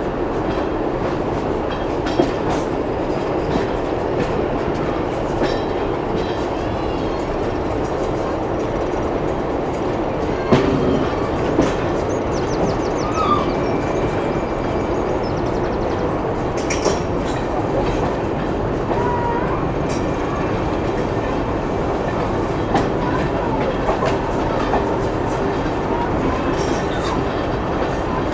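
Moving train heard from a carriage window: a steady rumble of wheels on track with scattered clicks over the rail joints and a sharper knock about ten seconds in.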